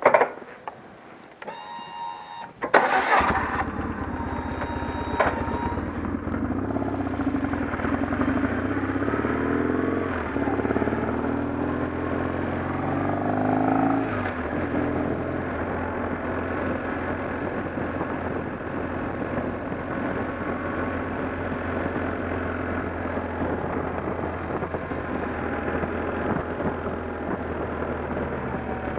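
A vehicle engine starts about three seconds in and runs. Its pitch climbs in several steps partway through, as when pulling away and shifting up, then holds steady.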